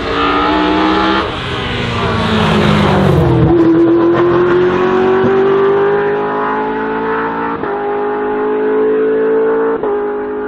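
Hill-climb touring race car's engine: revs fall as it slows into a tight bend, then climb steadily as it accelerates away, with two upshifts near the end.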